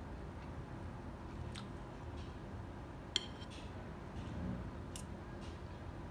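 Metal fork and spoon clinking and scraping against a ceramic plate while scooping rice: a few light clinks, the sharpest about three seconds in, over a steady low background hum.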